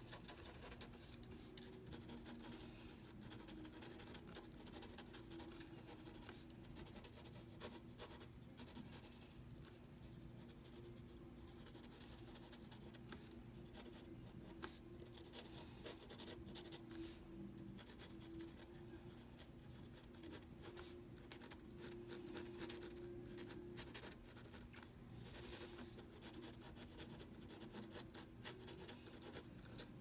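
Pencil scribbling on paper in quick scratchy strokes, busy at first, easing off through the middle, then picking up again near the end.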